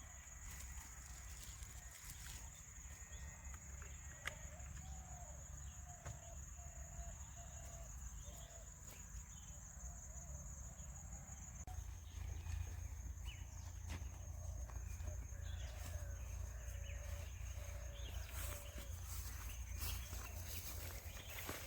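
Faint bird calls: a run of short, quickly repeated clucking notes, then a second run later on, over a steady high-pitched whine and a low rumble.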